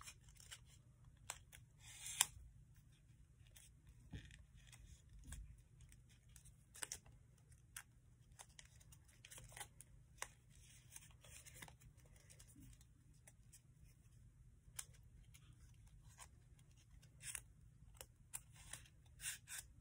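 Faint rustling and crinkling of folded paper being pinched, opened and pressed into shape with metal tweezers, with small scattered clicks.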